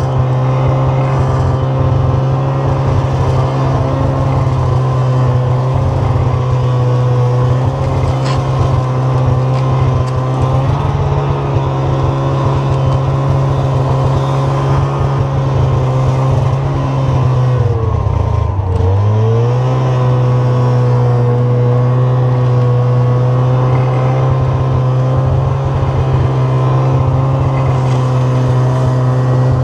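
Ski-Doo Skandic SWT snowmobile engine running steadily under load while towing a sled and a 30 ft cedar log through snow. About two-thirds of the way through, the engine speed drops sharply for a moment and then comes back up.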